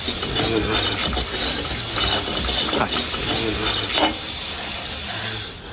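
Water running from a washroom sink tap, a steady hiss of water, with a few brief knocks and splashes as hands are washed under it.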